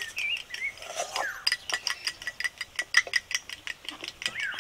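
A spoon beating sour yogurt in a small glass bowl, clinking quickly and evenly against the glass at about six clicks a second.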